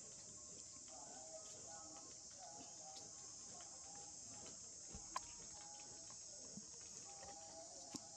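Faint, steady, high-pitched insect chorus, with short mid-pitched calls coming and going in the background and one sharp click a little past five seconds in.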